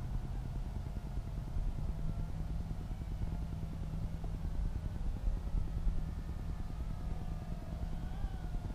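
Small quadcopter's motors whining faintly, their pitch wavering up and down as the throttle changes, over a low fluttering rumble.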